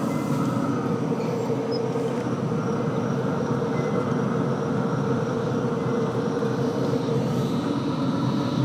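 Steady whirring hum of a pellet grill's combustion fan running, with no change through the stretch.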